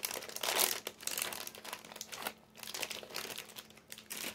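Crinkling of a plastic bag of Cheesies Jalapeño snacks being handled and opened, in dense irregular rustles. Busiest in the first two seconds, it thins out after a short lull midway.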